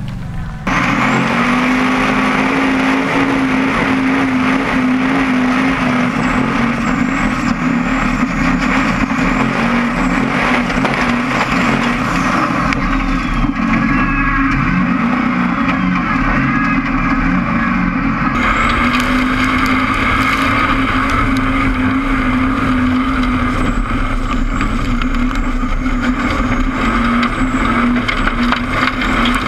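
Formula Offroad buggy's engine running hard at a steady high pitch, heard from a camera inside the cockpit, with wind and rattling over it. The sound jumps at edits about half a second in and again about 18 seconds in, but the engine note holds steady.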